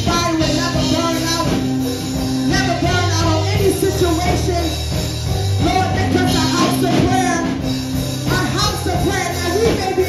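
Church band music with singing over long held bass notes.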